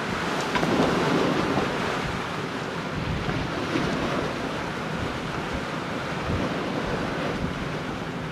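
Steady rush of sea waves along the hull of a sailing yacht underway, with wind buffeting the microphone.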